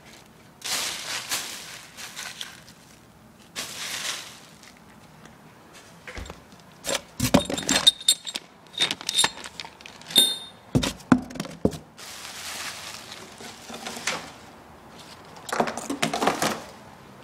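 Plastic packaging crinkling and rustling in bursts as it is pulled about, with a cluster of sharp clicks and light metallic jingling in the middle from a small plastic bag of metal parts being handled, and cardboard box flaps being moved.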